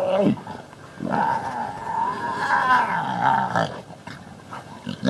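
Growling from a dog and big-cat cubs play-fighting: a short growl at the start, then a long, wavering growl from about a second in that lasts some two and a half seconds.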